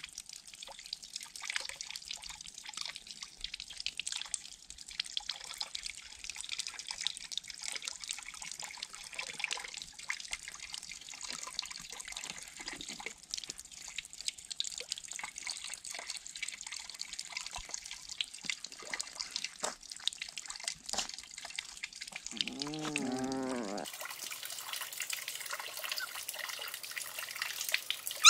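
Water trickling and splashing steadily into a pond, with many small drips and plops. A short wavering pitched call of a few notes comes about three-quarters of the way in. A few seconds before the end the water turns into a brighter, steadier hiss.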